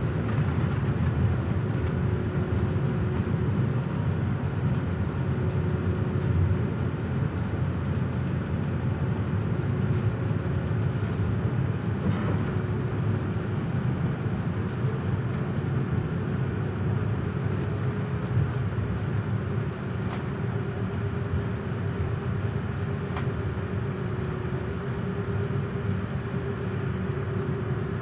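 Airliner cabin noise while taxiing after landing: the jet engines and rolling gear make a steady rumble with a faint steady hum running through it.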